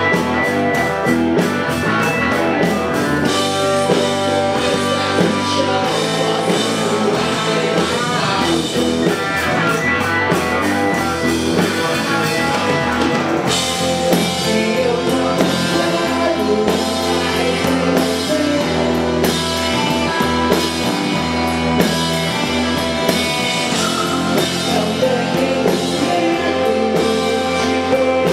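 Rock band playing a song with electric guitar, bass, drums and keyboard, with a sung lead vocal.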